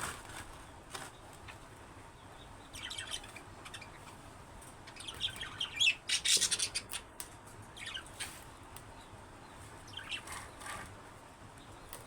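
Budgerigars chirping and squawking in short scattered bursts, busiest and loudest about halfway through.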